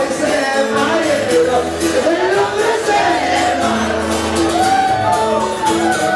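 Live band music: a man singing into a microphone over strummed guitar, with a low bass line underneath.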